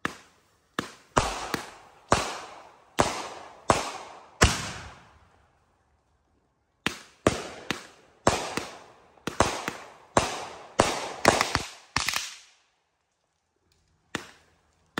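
Consumer aerial fireworks going off in a backyard show. There is a run of about six sharp bangs, a pause of a couple of seconds, then a faster volley of a dozen or so bangs, and one more bang near the end. Each bang trails off in a fading echo.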